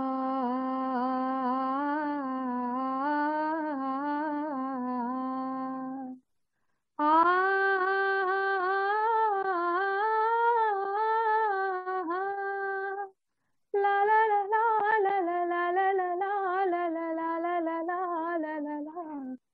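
A woman sings unaccompanied: a Marathi poem set to her own slow melody. It comes in three long phrases with short breaks between them, and the held notes waver.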